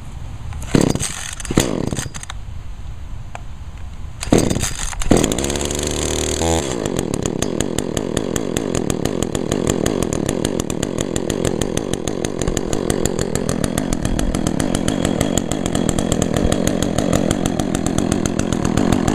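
Cold start of an Echo CS-400 two-stroke chainsaw: four sharp pulls on the starter cord, the last one about five seconds in, after which the engine catches and settles into a steady, even run.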